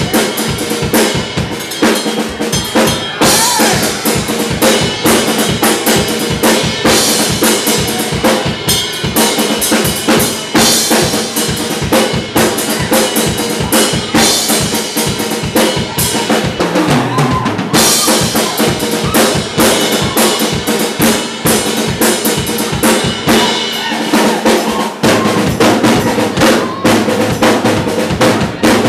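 Music driven by a busy drum kit, with bass drum, snare and rimshots over sustained instrument tones; a deeper bass note comes in near the end.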